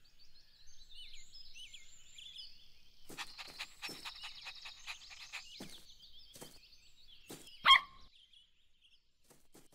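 Cartoon puppy giving a single short, high yap about three-quarters of the way through. Before it come faint chirping and a run of light taps.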